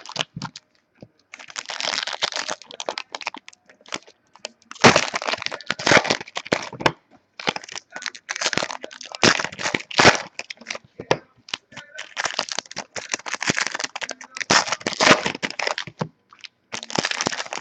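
Trading-card pack wrappers being torn open and crinkled: a string of crackling tears and crinkles with short pauses between them.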